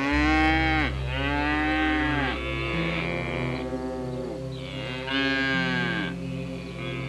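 Bovine mooing: about four long, low calls, each falling in pitch, with a pause before the last one. A steady low music drone runs underneath.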